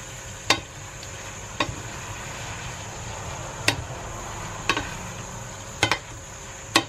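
Wooden spatula stirring and tossing rice noodles and vegetables in a stainless steel frying pan, over a steady sizzle. About six irregular sharp knocks come from the spatula striking the pan.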